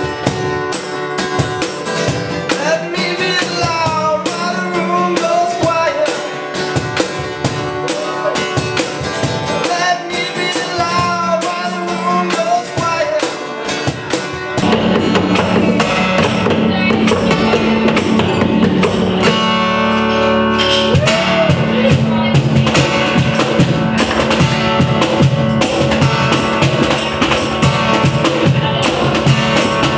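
Music: a song with a sung melody over guitar and tambourine, then from about halfway in a fuller, louder band sound with drums and bass.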